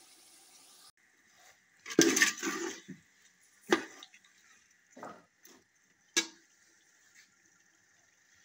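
Metal spoon scraping and knocking against the side of a steel cooking pot while stirring chicken masala: a loud clatter about two seconds in, then four single knocks over the next few seconds. A soft hiss stops after about the first second.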